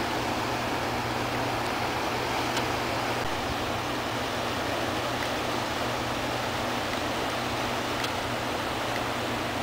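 Whitewater rapids of a river rushing steadily, with a constant low hum underneath.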